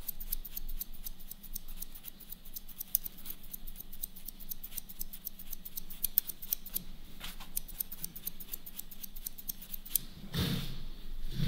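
Hairdresser's scissors snipping through wet hair while cutting freehand: a quick run of small crisp clicks, several a second, thinning out after the middle. A brief louder low sound comes near the end.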